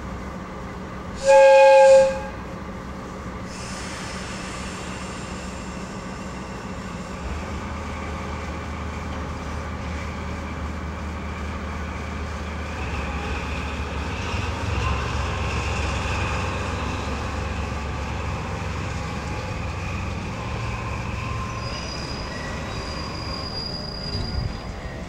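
Diesel shunting locomotive hauling boxcars: one short, loud horn blast about a second in, then its engine running and picking up power as it moves the train. Thin wheel squeals come in over the second half.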